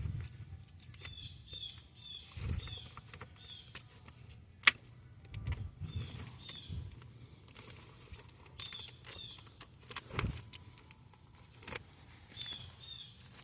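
Clicks, light knocks and rustling of hands working wiring and a bracket in the engine bay, with one sharp click just under five seconds in. Short high bird chirps repeat in small groups through it.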